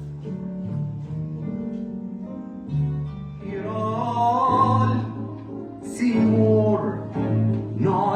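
Music: sustained instrumental notes over low bass notes, joined by a singing voice about three and a half seconds in.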